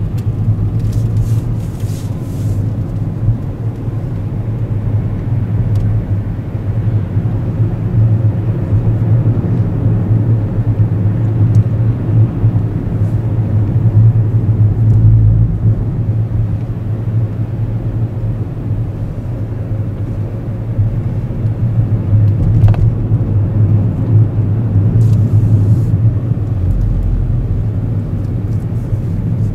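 Car driving on the road: a steady low rumble of engine and road noise.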